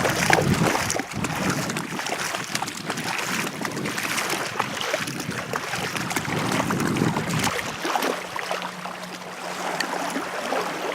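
Wind buffeting the microphone over splashing and lapping lake water. About eight seconds in, a low steady hum comes in.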